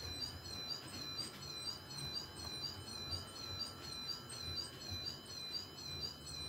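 Model freight train running past with a regular high squeak, about three short chirps a second, over soft low clicking from the wheels on the track. The squeaks stop abruptly near the end.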